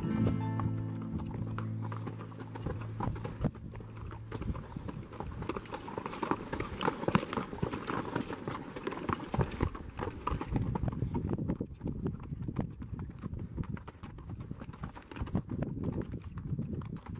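Horse's hooves clopping on a rocky dirt trail in an irregular run of strikes. Background music fades out in the first couple of seconds.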